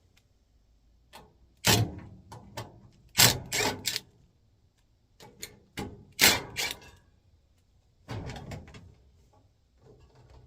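A series of sharp knocks and rattles as an air-conditioning unit is opened up for maintenance, coming in four short clusters.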